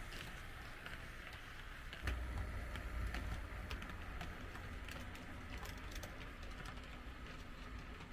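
HO-scale model train, a model DB class 218 locomotive hauling wagons, running around a layout: a steady run of light clicks from wheels over the track, with a low rumble that swells about two seconds in and then eases off.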